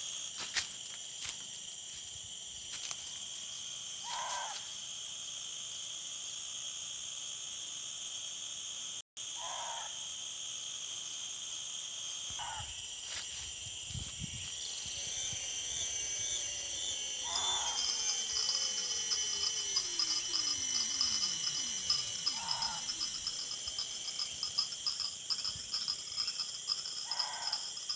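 A night animal's short call, repeated about six times every few seconds, which a local fisherman calls a bangkuy, over a steady chorus of night insects.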